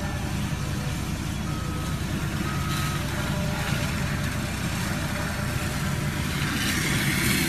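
Diesel engine of a land-clearing loader running steadily, with a reversing alarm beeping twice, about two and three seconds in.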